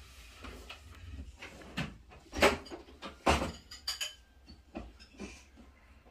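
A string of short, irregular knocks and clicks with faint rustling between them, the loudest about two and a half and three and a half seconds in.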